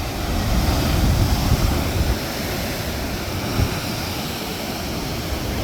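Heavy ocean surf washing into a rock pool, a continuous rushing roar with low rumbling surges, strongest in the first couple of seconds. Wind buffets the microphone.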